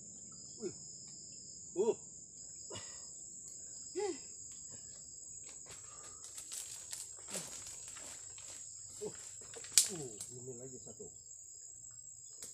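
Steady high-pitched drone of insects, with a few short calls and scattered clicks and rustles over it; the sharpest click comes about ten seconds in.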